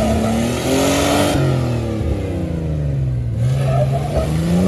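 Jeep engine revving hard in two surges, climbing, dropping and climbing again, as it tries a rock ledge with its rear tires spinning. The front drive shaft is out, so only the rear wheels drive and they break loose.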